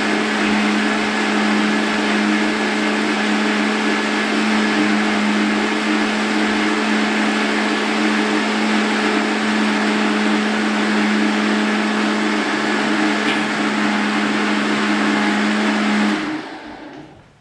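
Countertop blender running steadily, blending soaked oats and ripe bananas into a thick, smoothie-like mix. Near the end it is switched off and the motor winds down to a stop.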